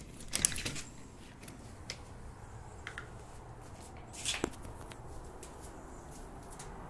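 Clicks and a rattle as a patio door's deadbolt is turned and the door, hung with slatted blinds, is opened, then a second short clatter a little past four seconds in.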